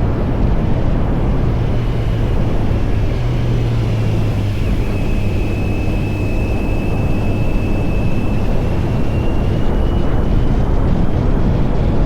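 Kawasaki Z900 SE's inline-four engine with an SC Project CR-T exhaust, running at a steady engine speed while riding, with a thin high whine that holds level and then rises slightly near the end.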